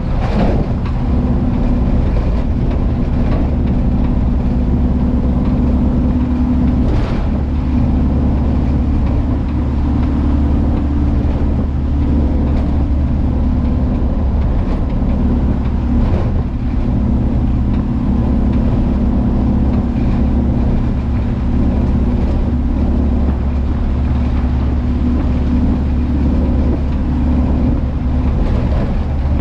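Volkswagen Kombi van's engine and exhaust running steadily while driving at speed, a low, even drone. A brief sharp knock sounds about seven seconds in.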